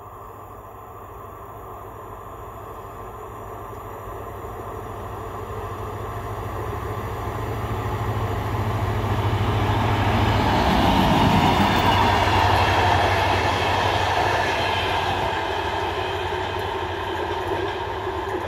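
DR1A diesel multiple unit passing by. A low diesel hum grows louder as it approaches and peaks with wheel and rail noise as it goes past about halfway through, then fades as it moves away.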